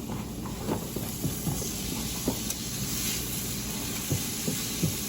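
Chopped cauliflower, corn and black beans sizzling in olive oil in a pan, a steady hiss with small scattered pops and crackles as the cauliflower browns.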